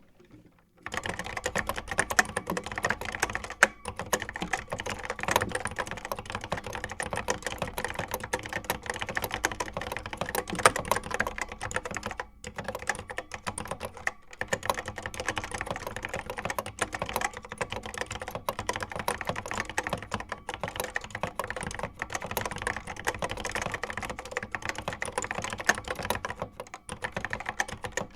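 Apple M0110A Macintosh Plus keyboard being typed on quickly and continuously: a dense run of key clacks that starts about a second in, broken by a few brief pauses.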